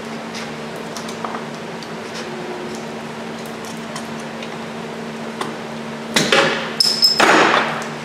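Loud metallic clanking and scraping at a truck wheel mounted on a tire balancer, lasting about two seconds from about six seconds in, as the old wheel weights are pried off the rim. A steady low hum runs underneath.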